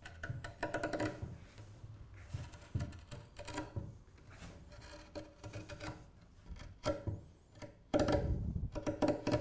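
Carving knife paring a steep bevel around the end of an ash chair leg: short slicing cuts, shavings coming off, in bursts of a few quick strokes with pauses between, the loudest burst near the end.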